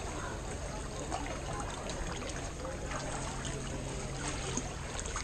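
Water sloshing and trickling with small splashes as people swim through a shallow river channel, heard from just above the water surface.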